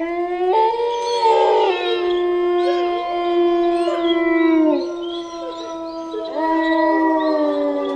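Several canines howling together: long held notes at different pitches overlap, and they slide down as each howl ends. A fresh howl joins about half a second in and another around six seconds.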